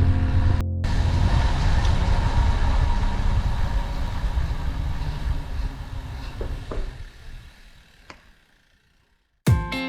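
Steady low road-and-wind rumble of a ride that fades out gradually to silence. Plucked guitar music starts near the end.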